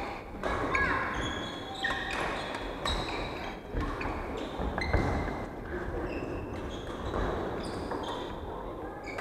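Badminton rally sounds: several sharp racket strikes on the shuttlecock, the loudest about five seconds in, and many short high squeaks of court shoes on the wooden floor.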